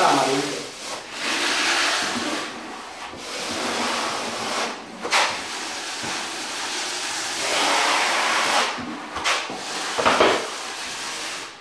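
Notched trowel scraping and combing tile adhesive across a concrete floor, in a series of long and short swishing strokes.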